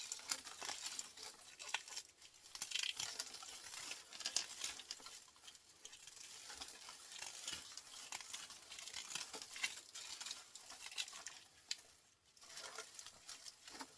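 Thin copper winding wire being pulled off a small electric motor's coil by hand: a continuous fine crinkling and ticking, with a brief pause near the end.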